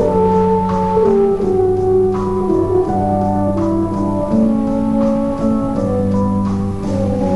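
Slow instrumental music of long held chords that change about every second.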